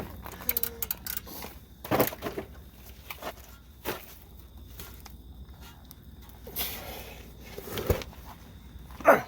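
Irregular knocks and clicks of hand tools and parts being handled, with the loudest knock near the end.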